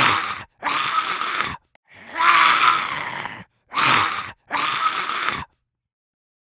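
Zombie groan sound effect: five hoarse, noisy groans in short bursts, the sequence repeating, then stopping abruptly about five and a half seconds in.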